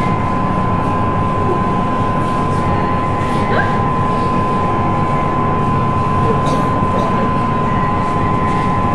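A steady, loud rushing noise with a thin, high, steady whine running through it.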